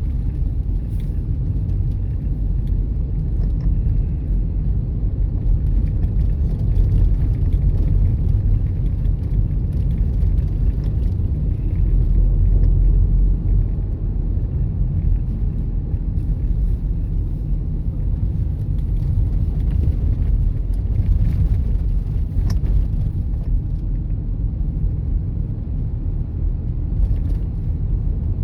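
A car driving along at steady speed, giving a continuous low rumble of road and engine noise.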